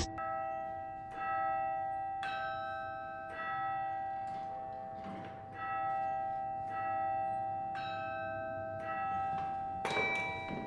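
Carillon bells played from the baton keyboard in a slow melody, about one note a second, each bell ringing on beneath the next.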